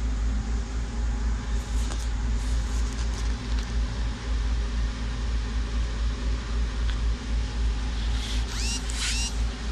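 Steady low rumble and hum of running machinery. A few brief high chirps bend up and down about eight to nine seconds in.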